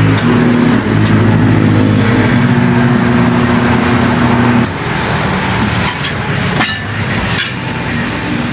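Tire-changer turntable motor running with a steady hum as the wheel turns, stopping about halfway through. A few sharp metallic clanks from the tire bar and machine follow.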